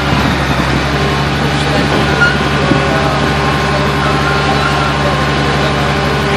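Steady mechanical hum at a fixed pitch, like an idling engine, unchanging throughout, with a few faint short chirps over it.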